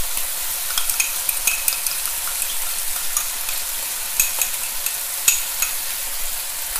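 Pork ribs sizzling in hot oil in a wok on high heat: a steady hiss, broken by many short clicks and scrapes of utensils against the wok as hoisin sauce is spooned in.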